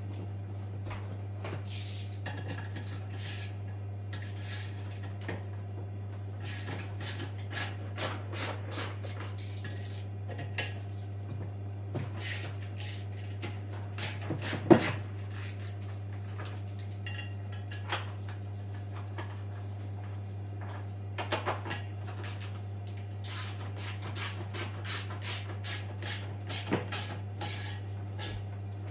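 Scattered metallic clinks, taps and knocks from tools and washing-machine parts being handled, with a sharper knock about fifteen seconds in, over a steady low hum.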